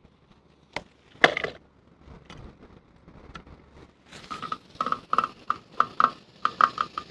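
Kite line being stripped off a large geared beach reel by hand: a fast, irregular run of short squeaky clicks, each ringing at the same pitch, starting about four seconds in. A couple of sharp knocks come before it, about a second in.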